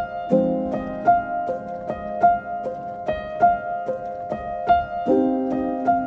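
Background music: a light piano melody of evenly spaced notes over held chords.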